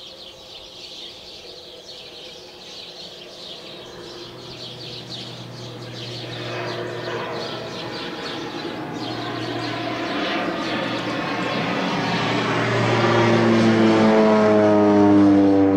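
Single-engine crop-spraying airplane flying in low, its engine drone growing steadily louder until it passes overhead near the end, the pitch dropping as it goes by. Birds chirp while the plane is still distant.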